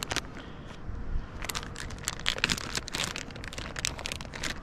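Irregular crinkling and clicking handling noise close to the microphone as fishing tackle is handled, with dense clicks from about a second and a half in.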